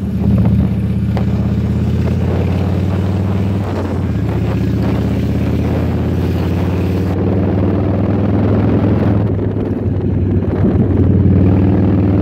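Cruiser motorcycle engine running steadily under way, heard from the rider's seat, with wind buffeting the microphone.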